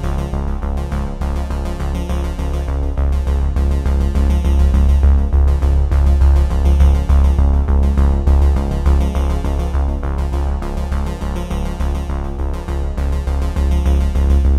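Electronic background music with a synthesizer and a steady, heavy bass beat.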